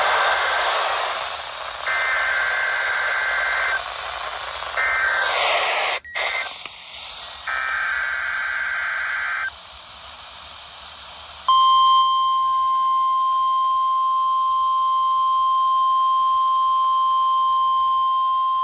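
NOAA Weather Radio alert received over a radio with static hiss: three short warbling bursts of SAME digital header data, then, about a dozen seconds in, the steady 1050 Hz weather alert tone that announces a new alert.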